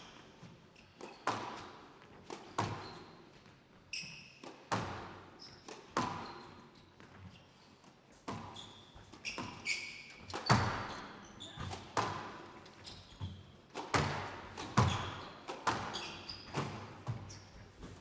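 Squash rally: the ball is struck hard by rackets and smacks off the court walls about once a second, each hit echoing around the hall. Short high squeaks from the players' shoes on the court floor fall between the hits.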